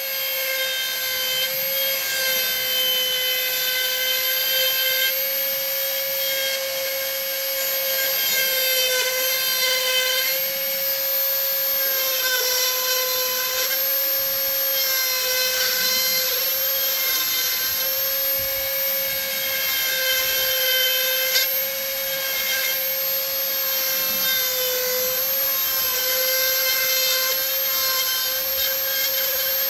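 Dremel flex-shaft rotary tool running steadily, its burr grinding into the wood with a high whine that dips slightly in pitch now and then as it bites, over a gritty rasping hiss.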